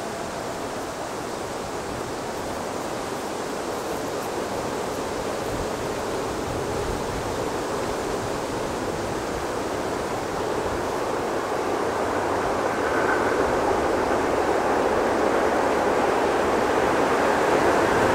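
SM42 diesel locomotive approaching with a short passenger train: a steady rushing noise of the engine and wheels on the rails that grows gradually louder as it nears.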